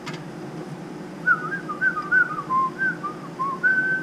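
A person whistling a short tune, a quick run of sliding notes ending on one held note, over a steady low mechanical hum.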